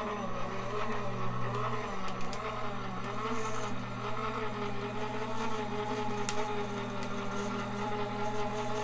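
Crafter's Companion Gemini electric die-cutting machine running, its motor humming steadily as it draws a die-cutting plate sandwich through its rollers, with a couple of light clicks.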